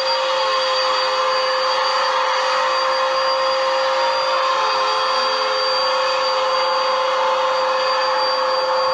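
Vacuum cleaner motor running steadily, a constant whine over an even rush of air.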